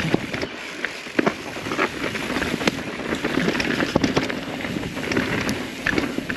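Mountain bike descending a dry, dusty dirt trail: tyres crunching and skittering over loose dirt and stones, with a run of irregular clicks and clatter from the bike over bumps.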